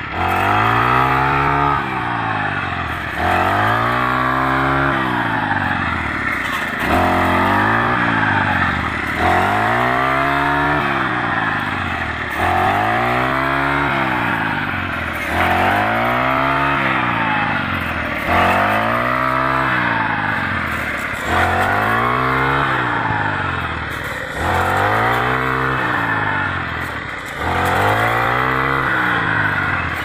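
Brush cutter engine, fitted with a wheat-reaping attachment, running hard while cutting standing wheat. Its pitch rises and falls about every second and a half as the blade sweeps through the stalks.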